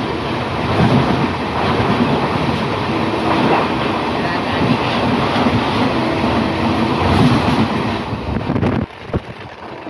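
A passenger train passing close by on the next track, heard from an open coach doorway: a loud, steady rush of wheels on rail with rattling and wind. The noise drops off suddenly near the end as the last coach goes by.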